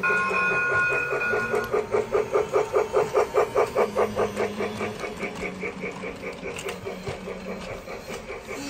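Lionel Polar Express toy train running on its track: a rhythmic mechanical clatter of about four beats a second that slowly fades. A steady high tone sounds over the first second and a half.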